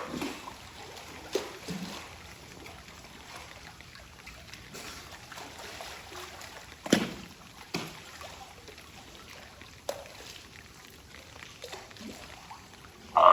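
Water trickling steadily, with a few brief splashes or knocks; the loudest comes about seven seconds in.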